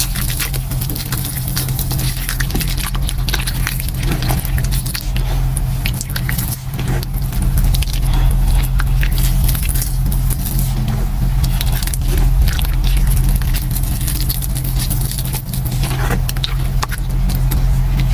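Wet squishing and crackling of hands kneading and squeezing thick gym chalk paste mixed with glitter, in dense, irregular squelches and crackles, over a steady low hum.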